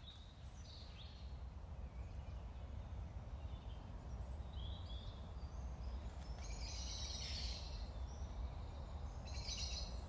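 Small birds singing and chirping on and off, with a couple of busier song phrases about seven seconds in and near the end, over a steady low rumble.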